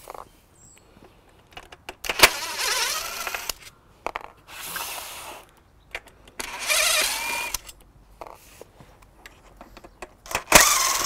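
Cordless DeWalt impact driver backing out small Allen-head bolts from an aluminium blind leg, in four short bursts of about a second each with pauses between.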